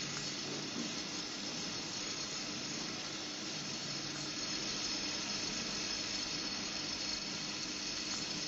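Steady hiss with a faint low hum: the background noise of running factory machinery around a robot assembly cell.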